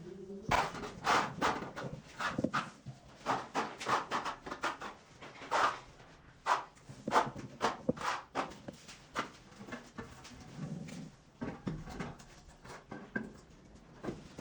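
Irregular knocks and scrapes from hand-laying ceramic floor tiles: tools and tiles striking and dragging over the tile and mortar bed, several times a second, thinning out in the last few seconds.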